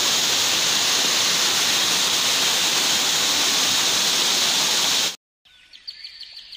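Waterfall: a steady, loud rush of falling water that cuts off suddenly about five seconds in, leaving only a few faint high chirps and ticks.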